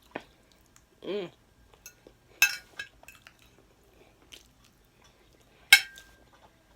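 Cutlery clinking against a dish twice, each sharp clink ringing briefly, with quiet mouth and eating sounds between and a short voiced hum about a second in.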